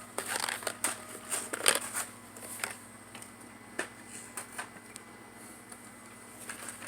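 A candy package being opened and handled by hand: scattered clicks and crinkles, busiest in the first couple of seconds, then fewer and fainter.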